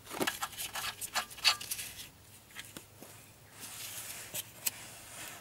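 Irregular metallic clicks and taps of a hand wrench and socket working on bolts under the car. The clicks come in a quick cluster in the first two seconds and again near the end.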